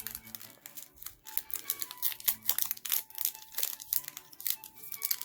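Foil booster-pack wrapper crinkling and tearing as it is pulled open, in many short crackles, its seal tightly crimped. Background music plays underneath.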